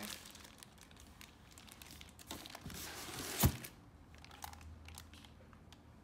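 Thin plastic wrapping bags crinkling and rustling as a packaged item is handled in its box. The sound is irregular, with one sharp, louder crackle about three and a half seconds in.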